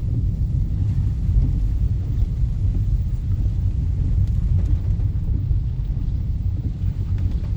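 Rainstorm outdoors with a steady low rumble, mostly wind buffeting the microphone.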